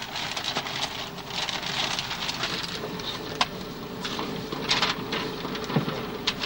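Close-up paper rustling and crinkling with many sharp crackles, from a folded paper chart being handled and a sandwich being unwrapped from its paper. A faint steady hum runs underneath.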